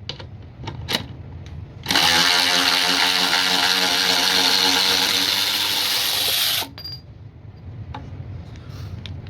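Byczone 3/8-inch cordless electric ratchet on a DeWalt 20V battery, its motor and gearing running with a steady whine. It starts about two seconds in and stops after about five seconds. A few light clicks come before it.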